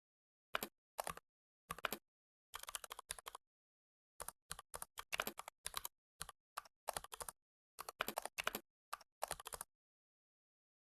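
Computer keyboard typing: short runs of keystrokes with dead silence between them, then the typing stops.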